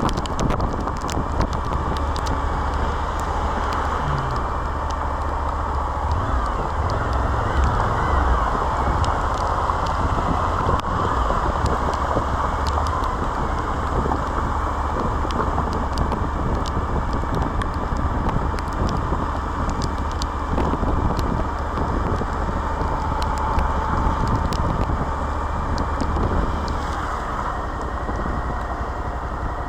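Suzuki V-Strom 1050XT on the move: steady wind rush on the microphone over the low running of its V-twin engine, with scattered small ticks. Near the end the rush drops a little as the bike eases off.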